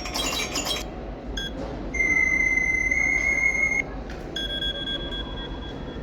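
iPhone 13 alert tones played through the phone's speaker, one preview after another: a busy ringing chime ends about a second in, then a short blip, a steady high electronic tone held for about two seconds, and a ringing two-note tone near the end.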